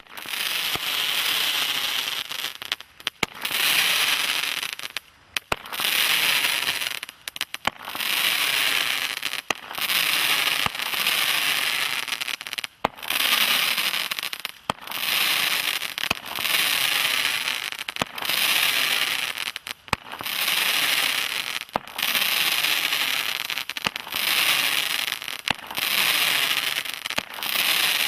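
Bright Star Sizzling Sentinels roman candle firing its crackling comets one after another, about one shot every two seconds. Each shot is a hissing, crackling rush lasting a second or so, with short gaps between.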